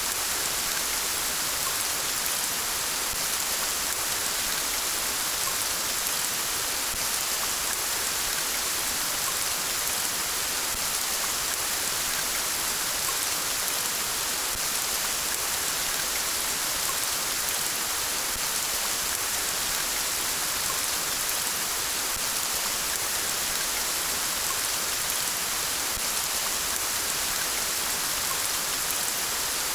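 Steady rain falling, a continuous even hiss with no breaks or distinct drops standing out.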